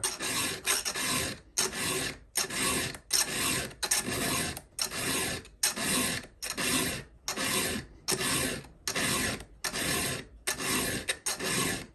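Round file being stroked by hand across a chainsaw chain's cutter tooth in an even run of file strokes, about two a second. The tooth is badly damaged by rocks, so it takes many strokes to file back to sharp.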